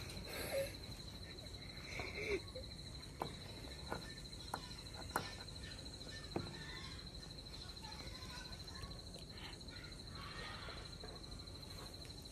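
A cricket trilling steadily, a continuous high-pitched pulsing tone, with about half a dozen sharp clicks over the first half.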